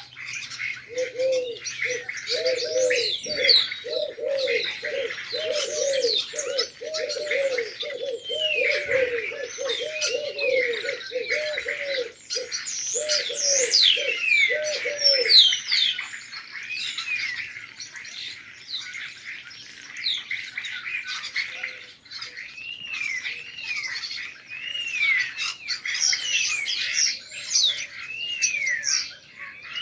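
A pigeon cooing in a quick, even run of low coos through the first half, over a steady chorus of small birds chirping and twittering.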